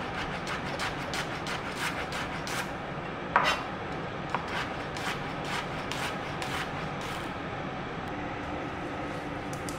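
Kitchen knife slicing myoga ginger into thin rings on a cutting board: a quick, even run of crisp cuts, about four a second, then slower cuts with one louder knock of the blade on the board about three and a half seconds in, stopping about seven seconds in. A steady low hiss lies underneath.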